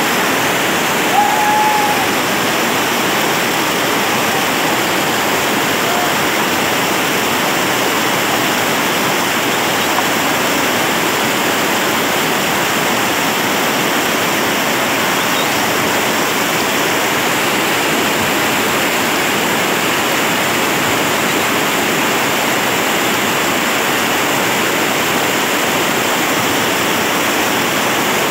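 Whitewater rapids of the Sarapiqui River rushing loudly and steadily. A short high call rises over it about a second in.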